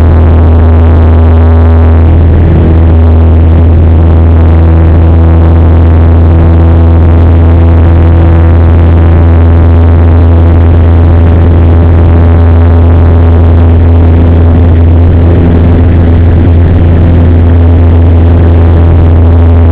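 Cessna 172's piston engine and propeller running at high power for a touch-and-go takeoff, a loud, steady drone heard inside the cockpit as the plane rolls down the runway and lifts off.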